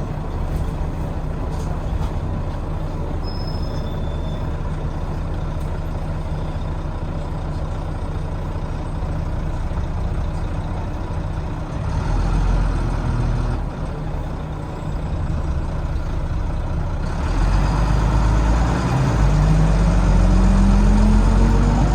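Volvo D9B six-cylinder diesel of a Volvo B9TL double-decker bus, heard from the back seats. It runs steadily at first, grows louder in the second half as the bus pulls away, and its pitch rises steadily near the end.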